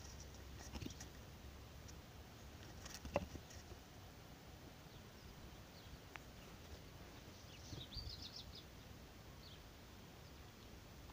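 Quiet outdoor ambience with a soft knock about three seconds in and a few faint high bird chirps near eight seconds.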